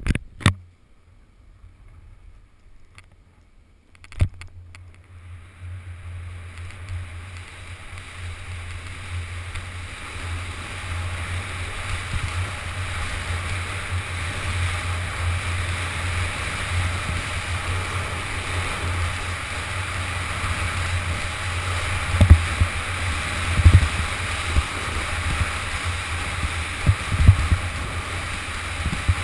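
Wind buffeting an action camera's microphone and skis hissing and scraping over packed snow on a downhill run. The sound builds from near quiet about five seconds in as speed picks up, and a few sharp thumps come near the end. The first seconds hold only a few clicks.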